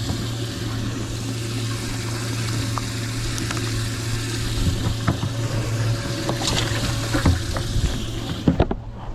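A boat livewell with water splashing and pouring in steadily over a low, steady pump hum. The water sound stops abruptly near the end, with a few knocks around it.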